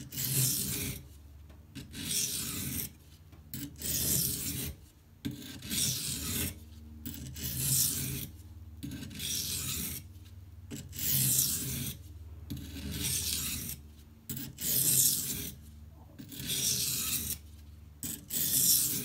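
Steel knife edge drawn in light strokes across a coarse, wet 240-grit silicon carbide water stone, a rasping scrape about once a second with short pauses between. These are burr-minimization passes on a K390 blade after a burr has been raised along the whole edge.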